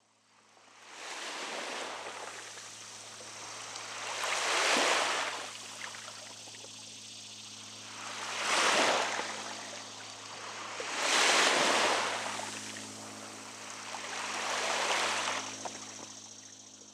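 Water waves washing in, swelling and fading four times a few seconds apart, over a faint steady low hum.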